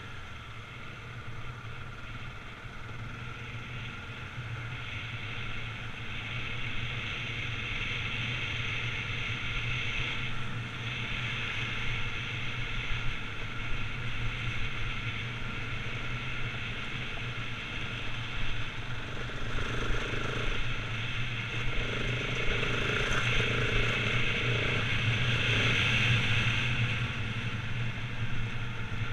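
Husqvarna 701 Enduro's single-cylinder engine running steadily under way, with the sound gradually getting louder through the second half.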